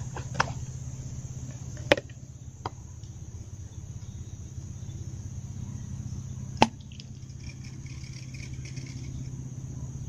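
Steady low drone of a boat's engine running on the river. Four sharp clicks cut through it, the loudest about two seconds and six and a half seconds in.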